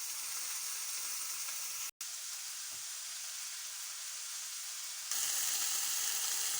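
Chicken strips sizzling as they fry in oil, a steady hiss. It breaks off for an instant about two seconds in and comes back louder about five seconds in.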